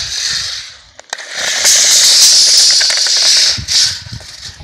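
Spear & Jackson 8 m tape measure's steel blade rattling out of its case as it is paid out over the ground, a steady rattling hiss with a short lull about a second in.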